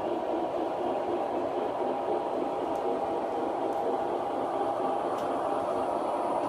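O scale model train running on the layout: a steady hum and rumble from the locomotive and wheels on the track.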